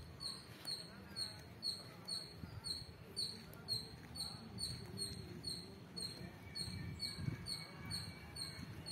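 An insect chirping in a steady, even rhythm of short high-pitched chirps, about three a second, over low rumbling handling noise.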